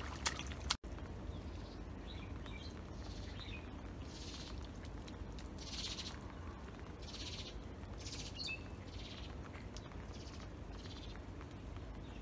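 Outdoor field ambience: a raspy animal call of about half a second repeats roughly once a second over a steady low rumble, with a few short chirps in the middle.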